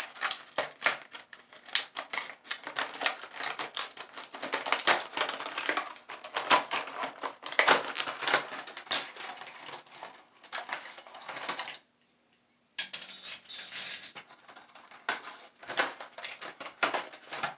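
New pens' packaging being pried and torn open by hand: a dense run of sharp clicks, crackles and scrapes of plastic and cardboard, breaking off for about a second near twelve seconds in.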